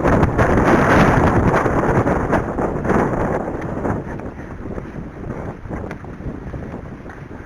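Strong wind buffeting the microphone. It starts abruptly, is loudest in the first couple of seconds, then gradually eases off.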